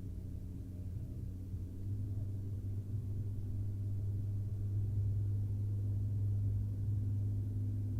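A steady low hum, getting louder about two seconds in and then holding.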